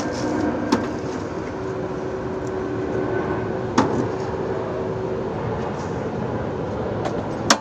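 Strong wind rushing steadily, with a few sharp knocks.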